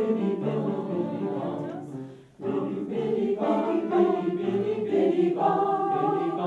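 Community choir singing held notes in slow phrases, with a short break between phrases a little after two seconds in.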